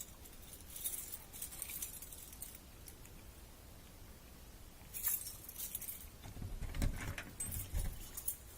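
Keys jangling in a few short bursts, with some soft low thumps near the end.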